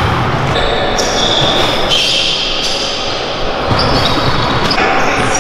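Background music with a beat and high held notes that change every second or so.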